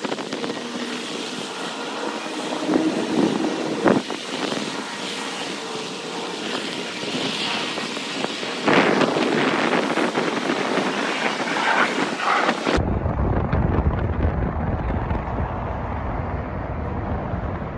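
Streetcar turntable rotating a heritage trolley car: steady mechanical running noise with a sharp knock about four seconds in and a louder burst just before nine seconds. Over the last five seconds wind rumbles on the microphone.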